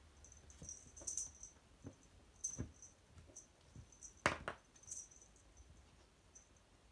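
A kitten playing on a wooden floor: scattered thumps and scuffs as its paws land and bat at rope toys, the loudest thump about four seconds in, with light, high tinkling jingles in between.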